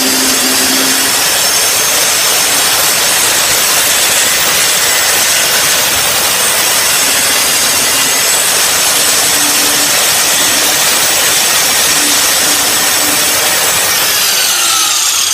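Hyper Tough angle grinder cutting through a grade 8 steel bolt: a loud, steady motor whine with a grinding hiss. Near the end the trigger is let go and the motor winds down, its pitch falling.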